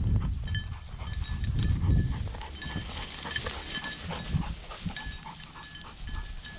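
A hunter and his bird dog moving through field cover, with rustling throughout. There are heavy gusts of wind rumble on the microphone in the first two seconds, and short, faint high ringing notes repeat throughout.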